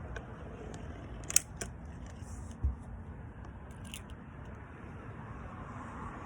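Sharp mechanical clicks and one dull clunk from a .22 Hatsan AirTact break-barrel air rifle being handled, typical of breaking and cocking the barrel and loading a pellet. The loudest click comes about a second and a half in and the clunk about a second later.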